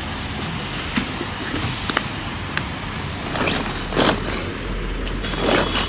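Pull-cord manual food chopper mincing onion: a quick series of pulls, each a short whirr of the blades spinning through the onion, starting about halfway in. Before that, a steady background hiss with a few light clicks of the chopper being handled.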